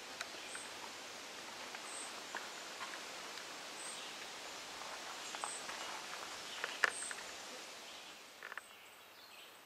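Outdoor ambience: a steady hiss with a short, high chirp repeating about every second and a half. A few light clicks, the sharpest about two-thirds of the way through. The hiss drops away near the end.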